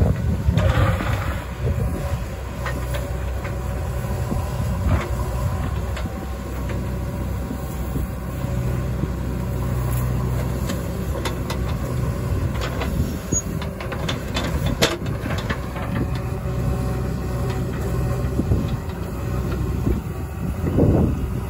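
JCB 3DX backhoe loader's diesel engine running steadily under working load as the backhoe digs and loads earth. Sharp knocks and clatter, mostly in the middle of the stretch, come from the bucket striking soil and earth falling.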